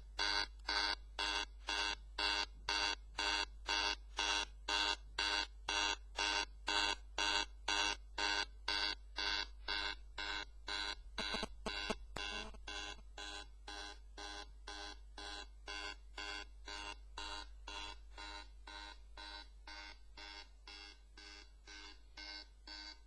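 iPhone 4S loudspeaker stuck in a sound bug after a phone call, giving out an evenly repeating pitched beep like an alarm, about two to three pulses a second, quieter from about halfway through. The faulty output stops only when the phone is turned off.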